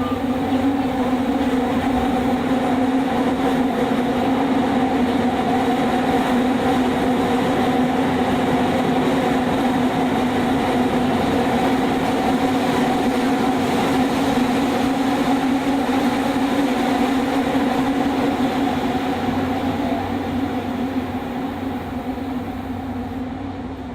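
Running noise of a Fukuoka City Subway 2000-series car with a Hitachi hybrid SiC inverter, heard from inside the car in the tunnel: a steady hum of even tones over rumble. It swells just after the start and eases off over the last few seconds.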